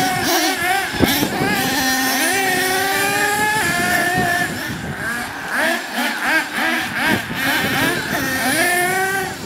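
Small nitro (glow-fuel) engine of a radio-controlled truggy revving up and down, its pitch rising and falling over and over as it accelerates and brakes, with a sharp knock about a second in.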